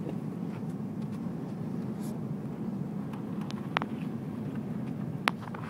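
Steady low rumble of an airliner cabin on the ground just after landing, with two sharp clicks, one past halfway and one near the end.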